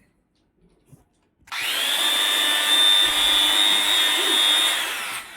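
Electric drill switched on, spinning up to speed with a high whine, running steadily for about three and a half seconds, then released and winding down near the end: a test run of the new drill.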